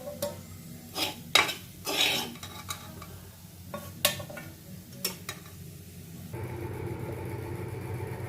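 A spoon scraping and knocking against a pan while stirring a cooked mushroom and pea mixture, a handful of sharp strokes. About six seconds in, a steady low hum starts and carries on.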